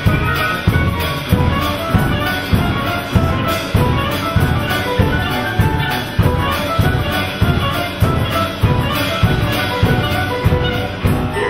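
Small live ensemble of flute, clarinet, grand piano, violin and double bass playing an upbeat piece with a steady beat of about one and a half per second.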